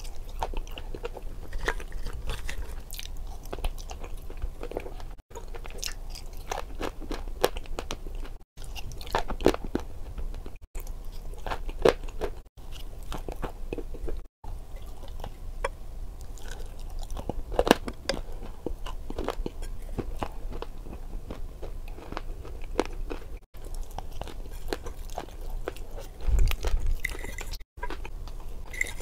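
Close-up chewing and biting of crunchy food taken by spoon from a bowl, with many small crunches. The sound cuts out for an instant several times.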